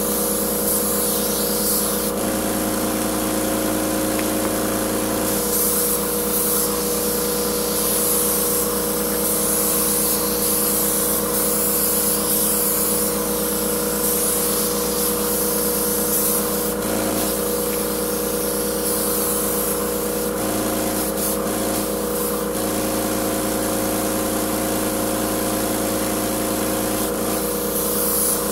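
Titan AirCoat air-assisted airless paint sprayer running: a steady machine hum from its motor and pump, and the hiss of paint spraying from the gun, which swells and fades as the trigger is worked. A lower hum cuts in and out several times.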